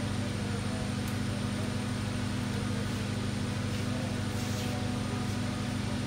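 A steady, low machine hum at an unchanging level.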